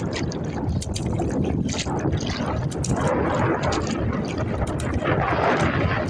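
Water sloshing and splashing against a kayak, with two louder swells of splashing about halfway through and near the end, over a steady low rumble of wind on the microphone.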